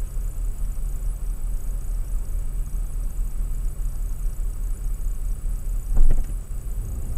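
Steady low rumble of a car idling at a standstill, heard inside the cabin, with a brief knock about six seconds in.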